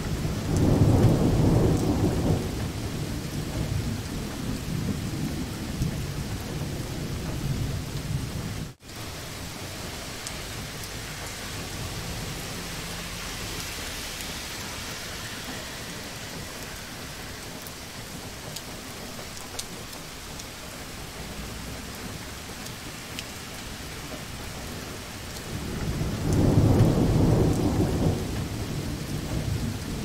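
Steady heavy rain with two low rolls of thunder, each lasting a few seconds: one right at the start and one about 26 seconds in. The sound drops out for a moment about nine seconds in.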